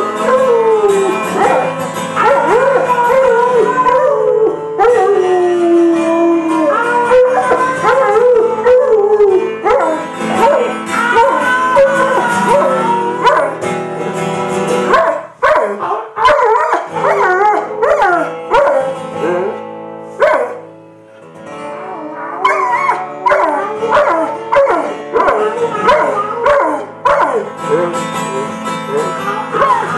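Rottweiler howling along to chords being played, its long howls gliding up and down in pitch and shifting key with the chord changes. The howls break off briefly about halfway through and again about two-thirds of the way in.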